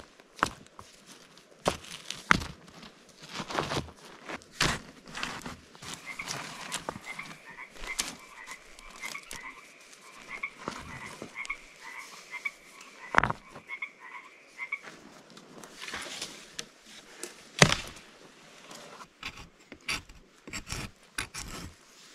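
A frog calling in a long, even series of short croaks for about nine seconds, starting some six seconds in, among scattered sharp clicks and knocks.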